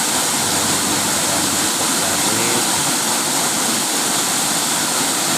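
Waterfall's water rushing and splashing in a steady, even roar.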